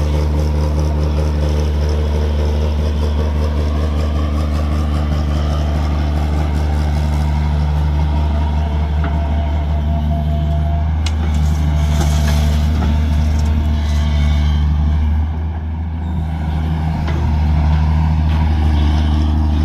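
Heavy diesel engine running steadily with a deep, even drone, with a brief rush of noise and clicks a little past the middle and a short drop in the engine note a few seconds later.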